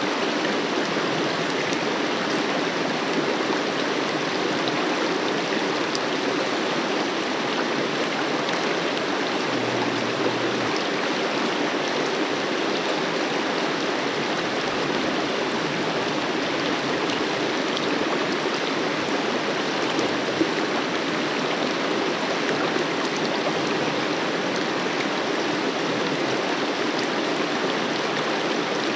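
River water flowing, a steady, even rush that holds the same level throughout.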